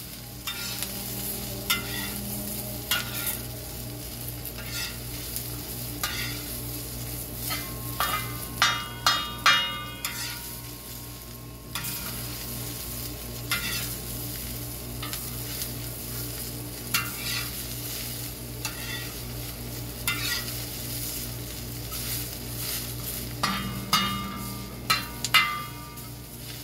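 A metal spatula scraping and stirring shredded cabbage on a hot steel plow-disk discada over charcoal, the cabbage sizzling as it fries. Twice, about eight seconds in and again near the end, a cluster of sharp strikes brings a few ringing tones, which fit wind chimes nearby.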